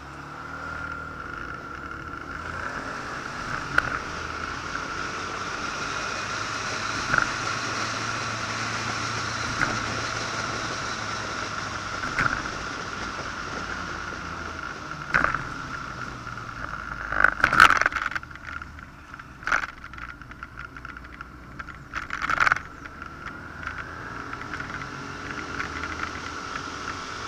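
Motorcycle riding at road speed: engine and road noise with a steady high whine, picking up over the first few seconds. Short sharp knocks and clatters come through now and then, thickest in the second half.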